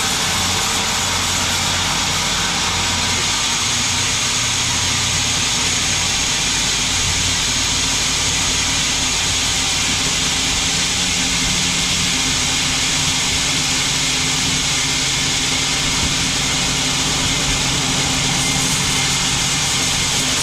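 Band sawmill running steadily: an even loud hiss over a low motor hum.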